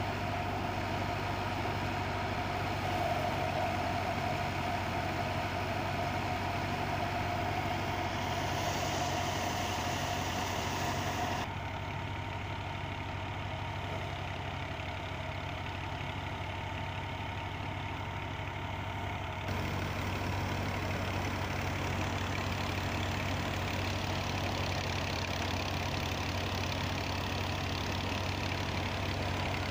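Al-Ghazi tractor's diesel engine running at a steady speed while it powers a thresher machine, a constant drone with a hiss on top. In the middle the sound turns duller and slightly quieter for several seconds, then returns.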